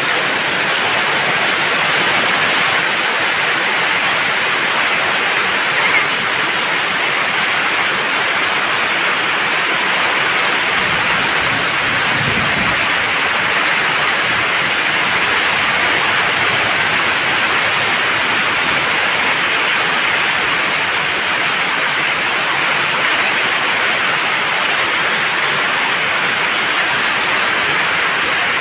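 Heavy rain pouring steadily onto flooded pavement, with a stream of roof runoff splashing into the standing water. A brief low rumble comes about eleven seconds in.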